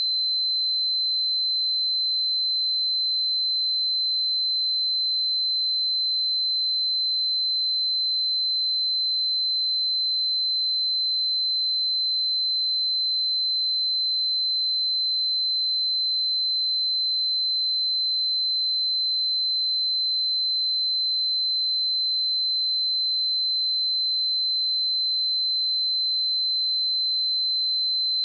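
A steady 4071 Hz sine test tone: one pure high-pitched whistle-like tone held unchanging at constant level, used to check speakers and headphones.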